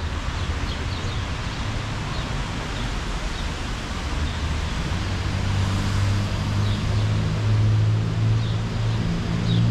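Street ambience on a wet day: a steady hiss over a low vehicle engine hum that grows louder after about the midpoint, with a few faint high chirps.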